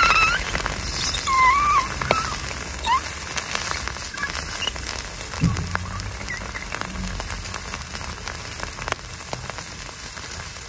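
Red-hot iron ball pressed into raw chicken, the meat's juices and fat sizzling and crackling against the metal, with a few short high squeals in the first few seconds.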